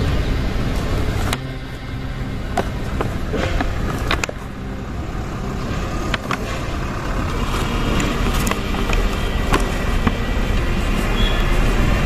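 Steady low outdoor rumble, with scattered clicks and rustles from a cardboard toy box being handled and torn open.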